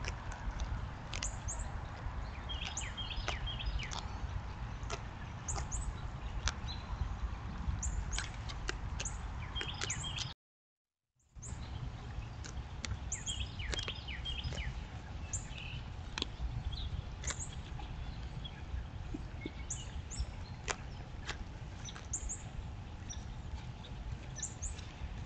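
Small birds chirping and calling again and again over a steady low rumble. The sound drops out for about a second where the recording cuts, about ten seconds in.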